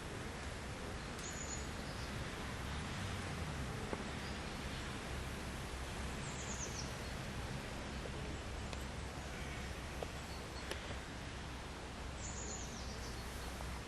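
Riverbank ambience: a steady rushing noise, with a bird's short, high call falling in pitch heard three times, about a second in, midway and near the end.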